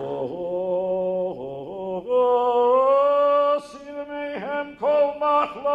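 A man singing a slow chant melody solo, holding long notes; the pitch steps up about two seconds in, and the last second or so breaks into shorter notes.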